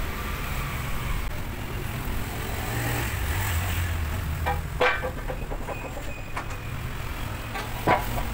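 Steady low rumble of road traffic, with sharp metal clanks about halfway through and again near the end as the steel fork arms of the lift cart are handled.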